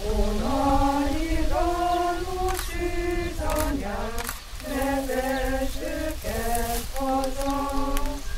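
Voices singing a slow melody in unison, in held notes that move step by step, over a low rumble.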